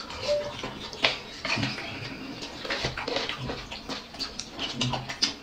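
Eating sounds: people chewing and lip-smacking, a quick run of short smacks and clicks, with one sharper click about a second in.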